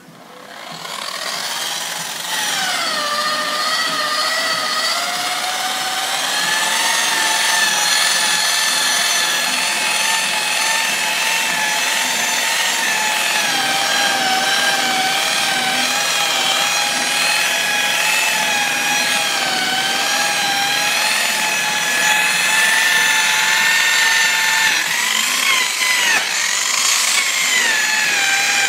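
Rotary polisher with a wool pad buffing a plastic headlight lens with rubbing compound at around 1700 RPM. Its motor whine swells up over the first couple of seconds, then runs steadily, wavering slightly in pitch as the pad is worked over the lens, with brief dips near the start and near the end.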